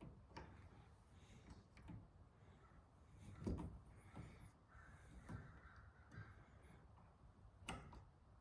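Near silence, with a few faint knocks and a faint bird call a little past the middle.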